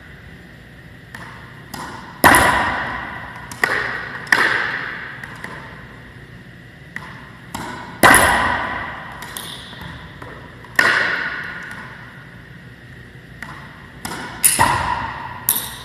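Racquetball backhand shots: a string of sharp pops as the hollow rubber ball is struck by the racquet and rebounds off the front wall and floor, each ringing on in the court's echo. There are about five loud strikes spaced a few seconds apart, with lighter bounces between them.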